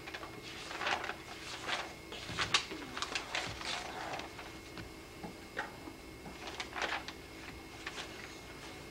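Paper pages of a notebook being turned and rustled by hand, a run of short, irregular crackles and swishes as the pages are flipped through to find a page.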